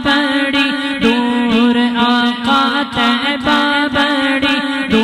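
Naat singing: layered male voices chant and hum a melody over a steady vocal drone, with a regular beat running underneath.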